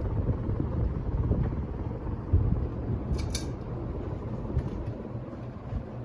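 Craftmade Yorktown ceiling fan running at speed: a steady rush of air from the blades over a low motor hum, gradually growing fainter. A short click sounds about three seconds in.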